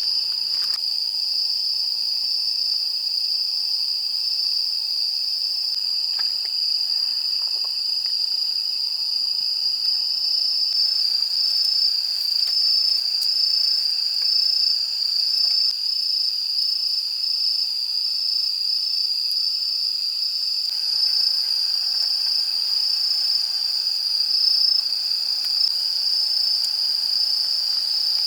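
Insects trilling: one steady, high-pitched chirr that never breaks.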